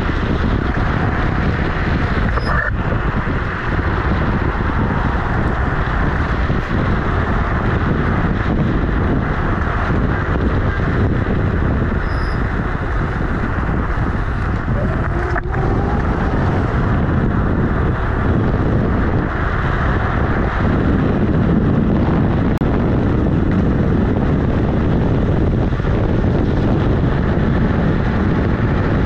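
Steady wind rushing over a camera microphone mounted next to the wheel of a moving Kugoo G-Booster electric scooter, mixed with its knobby tyre rumbling on the road. There are a couple of sharp clicks, about two seconds in and again about halfway through.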